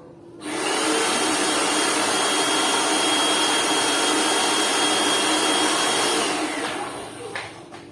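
Lakoni Laguna 70 electric pressure washer's motor and pump running, a loud steady hiss with a high whine, switching on suddenly about half a second in and winding down near the end.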